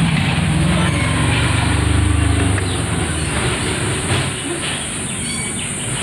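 A passing vehicle's low engine rumble, peaking about two seconds in and fading away by about three seconds, over a steady high drone of insects; short bird chirps come in near the end.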